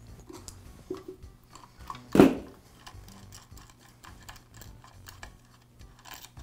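Small clicks and taps of metal and plastic parts being handled with pliers and fingers in the switch compartment of a Ridgid drain auger motor, as the air switch and its wire terminals are worked loose. One loud knock about two seconds in.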